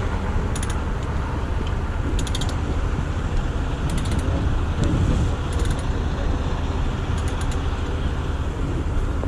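Ratchet chain binder being cranked tight, its pawl clicking in short bursts about every second and a half, over the steady low run of a heavy wrecker's engine.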